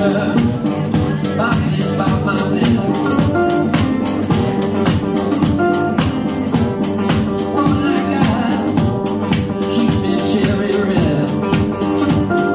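Live band playing an instrumental passage: electric-acoustic guitars with a kick drum keeping a steady beat under held notes.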